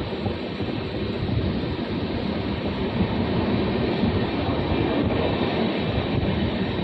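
Steady running noise of a passenger train heard from on board: the coach's wheels running along the rails.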